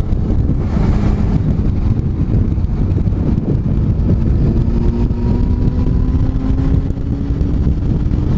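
Wind buffeting the microphone of a sport motorcycle at highway speed, a steady low roar with the engine running underneath. About halfway in, a faint engine tone slowly rises in pitch.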